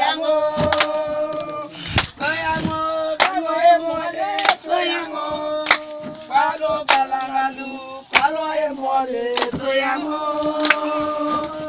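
A group of voices singing together in long held notes, with a sharp beat like a hand clap about every second and a quarter.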